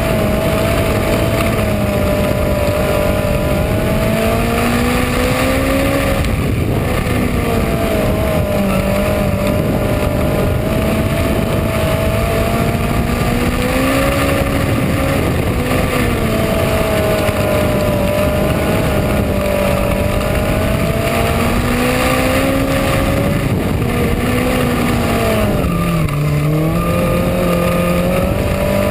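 Minisprint race car's engine heard from on board at racing speed on a dirt oval, its revs climbing and then dropping off every several seconds as it laps, with the deepest dip about three-quarters of the way through. A steady rushing hiss runs under it.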